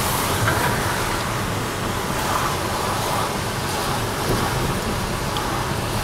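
Steady road noise heard from inside a moving car: the car's running gear, tyres on the wet street and surrounding traffic as an even rush.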